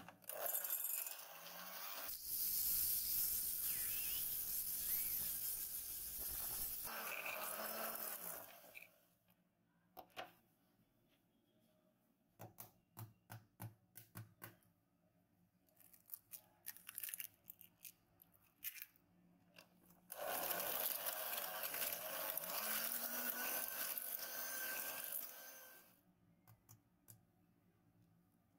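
Electric hand mixer's wire beaters creaming butter and sugar in a glass bowl, running for about eight seconds and then stopping. Light clicks and taps follow, and about twenty seconds in the mixer runs again for about six seconds, beating eggs into the creamed mixture.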